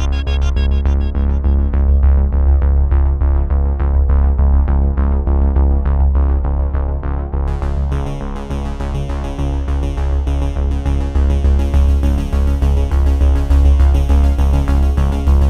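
Electronic background music: synthesizer over a strong bass line with a steady pulsing beat, turning brighter and fuller about halfway through.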